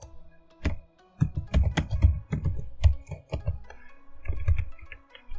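Computer keyboard typing: a quick, irregular run of keystrokes as a few words are typed, over faint background music.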